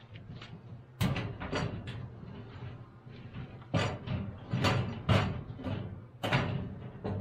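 A series of about seven sharp knocks and clunks at irregular intervals, each dying away quickly, like hard objects being handled and set down.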